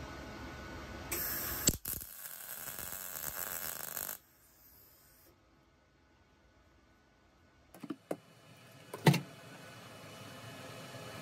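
MIG welder laying a short tack weld on the steel bracket: a crackling hiss that starts about a second in and stops abruptly about three seconds later. A few knocks and one louder metal clank follow near the end.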